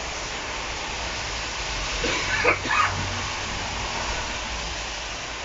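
Steady noise of street traffic and a low hum heard through the open doors of a Tatra KT4D tram standing at a stop. A brief higher-pitched sound comes about two and a half seconds in.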